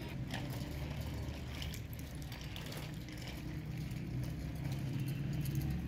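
Steady low engine rumble, with faint scattered ticks above it.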